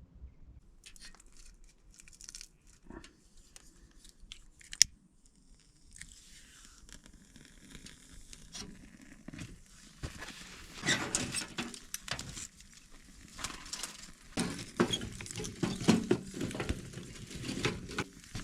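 Rustling and crinkling of fabric and gear being handled and shifted, with a sharp click about five seconds in. The rustling grows louder and busier from about ten seconds in.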